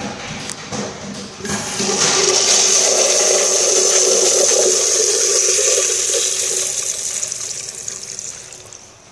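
Kohler Dexter urinal flushing through its flush valve. The water rush swells about a second and a half in, holds steady, then tapers off near the end as the valve shuts.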